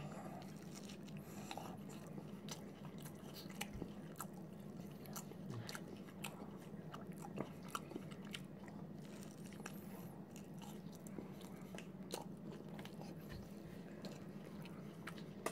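Faint close-up chewing of a mouthful of chicken wrap in a soft flour tortilla: scattered small mouth clicks and smacks, over a low steady hum.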